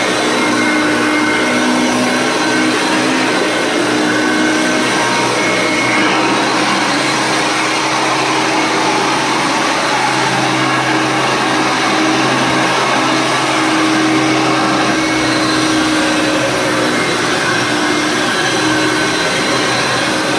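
Hoover Concept 1 upright vacuum cleaner running steadily while vacuuming, its motor hum wavering slightly in pitch.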